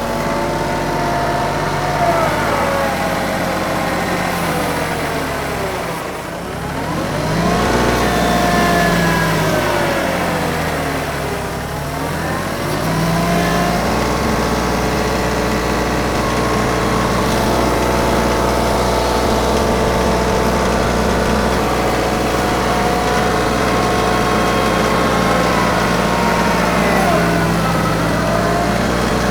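TYM 2515H compact tractor's three-cylinder diesel engine running while working, its pitch sagging and recovering about six seconds in and again about twelve seconds in as it takes load, with a smaller dip near the end.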